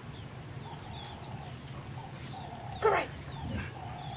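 Dog whining in short, steady notes, with one sharp bark about three seconds in. Faint bird chirps run underneath.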